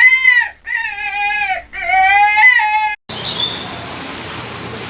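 An animal calling three times in high, wavering, bleat-like cries, then a sudden cut to a steady hiss.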